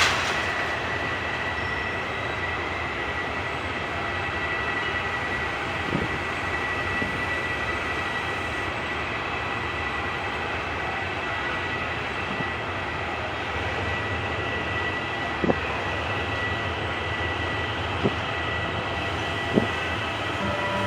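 Diesel train running steadily, with a low hum, a constant high whine and a few sharp clicks or knocks scattered through it.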